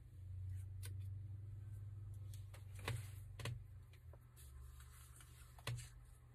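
Faint steady low hum with four light clicks scattered across it, the last one the sharpest.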